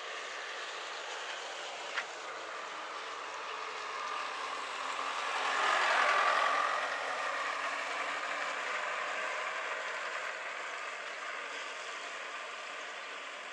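Steady rain hiss, with a vehicle passing on the wet road about midway: its tyre hiss swells, is loudest around six seconds in, then fades. A single sharp tick about two seconds in.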